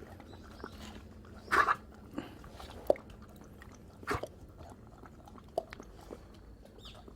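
A dog eating and drinking from a coconut: scattered short wet clicks and chewing sounds, with a brief louder noise about a second and a half in and another around four seconds in.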